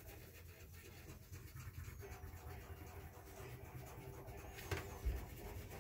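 Wax crayon rubbing on paper as a flower is coloured in, faint, with a couple of soft knocks near the end.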